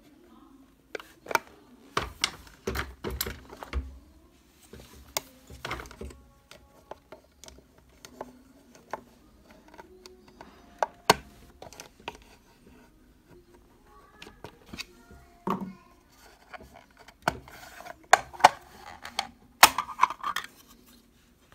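Hard plastic clicking and knocking as the clear cover of a plastic shopping trolley handle's promotion-card holder is handled, pried off and snapped back into place. The clicks are irregular, some of them sharp.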